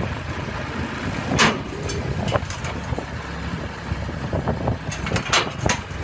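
Small crawler dozer's engine running steadily as it moves onto the trailer's steel ramps, with several sharp clanks from the tracks and ramps, one about a second and a half in and a quick cluster near the end.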